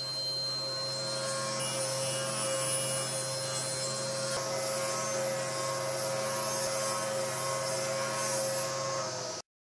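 Powermatic table saw running with a steady motor hum while its blade rips a wooden board, with a hiss of cutting over the hum. The sound cuts off abruptly near the end.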